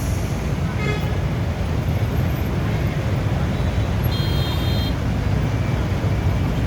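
Steady low rumble of road traffic, with a brief high-pitched toot about four seconds in.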